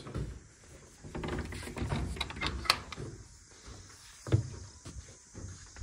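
A wooden door being handled and opened, with a series of clicks and knocks, followed by footsteps on wooden balcony boards, one heavier thump about four seconds in.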